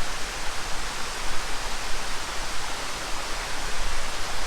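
Waterfall's falling water rushing in a steady, even roar.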